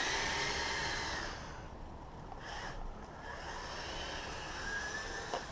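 Kyosho Blizzard radio-control snow vehicle's brushed electric motor and track drive whining steadily as it runs through snow. The whine fades after about a second, leaving fainter, short whines.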